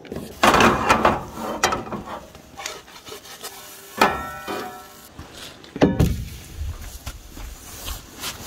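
Spatula scraping and clattering against a frying pan on a camp stove. About four seconds in the pan gives a sharp clank with a short metallic ring, and another loud knock follows just before six seconds.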